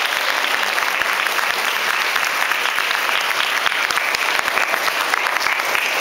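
Audience applauding: many hands clapping in a dense, even stream.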